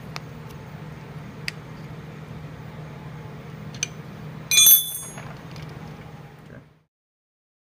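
Light metallic clicks of nuts and hardware being worked by hand on a coilover's steel camber plate, then a loud ringing metal clink about four and a half seconds in, over a steady low hum.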